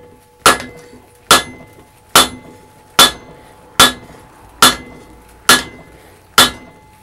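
Hand hammer striking a red-hot steel bar on the flat face of an anvil: eight evenly paced blows, a little more than one a second, each with a short metallic ring. The steel is being worked flat.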